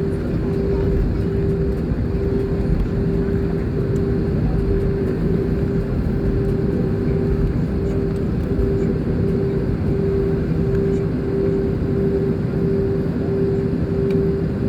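Airliner cabin noise while taxiing: a steady engine and airflow rumble with a humming tone that pulses about twice a second.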